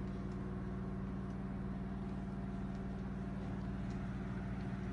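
A steady mechanical hum of constant pitch, unchanging throughout.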